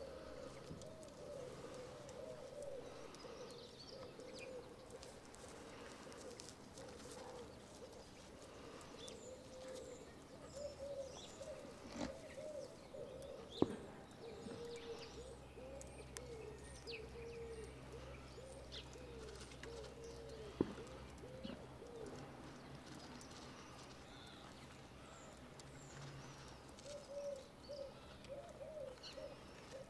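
Several alpacas humming: a soft, almost unbroken run of short hums that bend up and down, one overlapping the next. Small birds chirp faintly over it, and two sharp clicks come about seven seconds apart in the middle.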